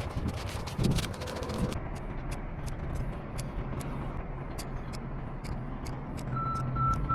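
Steady low hum of an idling vehicle engine with sharp clicks repeating every third of a second or so, and a few high beeps of a reversing alarm near the end.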